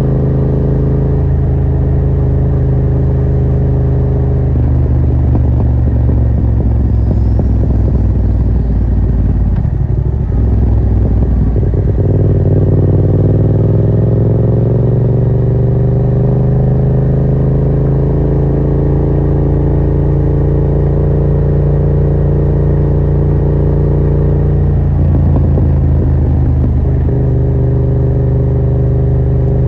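Yamaha MT-07's parallel-twin engine running through a Yoshimura R77 exhaust with its dB killer removed, a loud, deep exhaust note while riding. The note is steady at first, turns rougher from about four seconds in until about twelve, climbs slowly in pitch and holds, then goes rough again briefly near the end.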